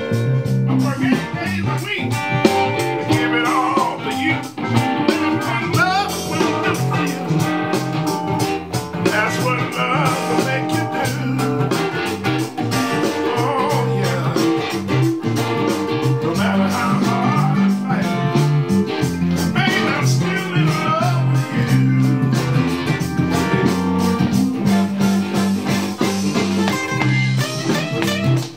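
Blues band playing an instrumental break: an electric guitar solo with bent notes over a steady bass line and drums.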